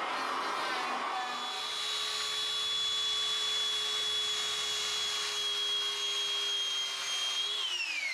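A handheld power tool cuts along a plywood panel edge for the first second or so, then runs free with a steady high whine and a lower hum. About seven and a half seconds in it is switched off, and its pitch falls as it spins down.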